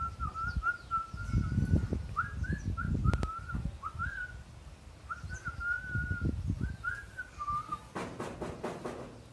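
A high, wavering whistle with quick upward flicks, in short phrases that stop about eight seconds in, over louder low, irregular thumps and rumbles. Near the end there is a brief clatter.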